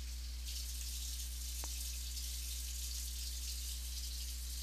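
Steady low electrical hum under an even hiss of background noise, with a single faint click about a second and a half in.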